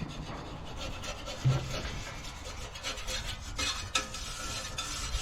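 Irregular scraping and rubbing of a tool over concrete, in uneven strokes with a few sharper scrapes.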